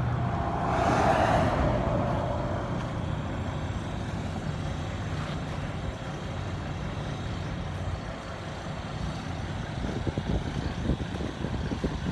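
Diesel semi truck idling with a steady low engine rumble; another vehicle passes about a second in, and irregular low bumps come near the end.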